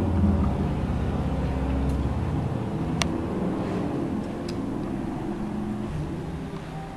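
Low, steady rumble of a vehicle engine that eases off gradually, with one sharp click about three seconds in.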